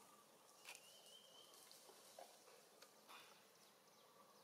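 Near silence: faint outdoor ambience with insects, a short thin high tone about a second in and a few soft clicks.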